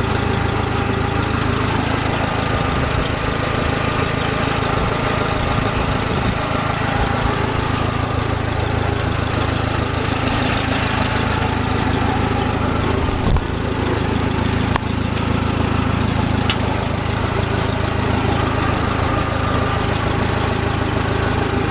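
Case 430 tractor's gasoline engine running steadily, warmed up, with a brief knock about thirteen seconds in.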